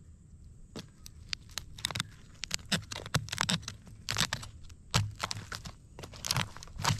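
Irregular sharp cracks and crunches, with the loudest ones about four, five and six to seven seconds in, as a mud crab roasted whole in campfire coals is handled once it is cooked.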